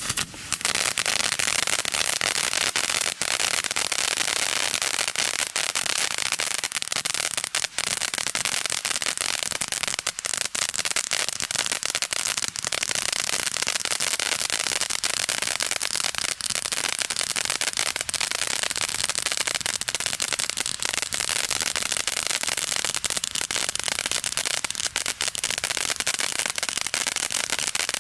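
Peacock Fan four-tube ground fountain firework spraying sparks: a steady, loud hiss with dense crackling.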